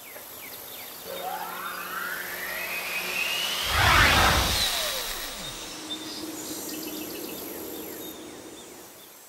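Logo-reveal whoosh sound effect: rising sweeps build to a loud swoosh about four seconds in, then the pitch drops away like something passing by. A softer shimmering tail with a low hum follows.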